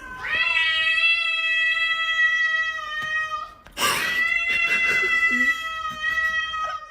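Cat yowling: two long drawn-out calls of about three and a half seconds each, held at a steady pitch, the first rising at its start.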